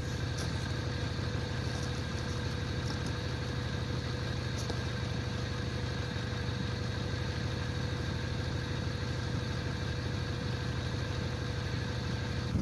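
Car engine idling steadily, with an even low hum.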